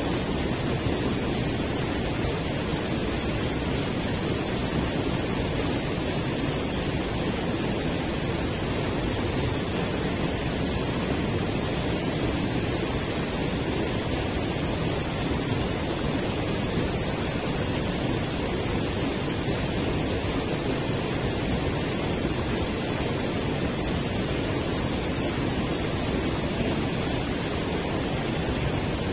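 River water rushing steadily over a low concrete weir, an unbroken wash of noise.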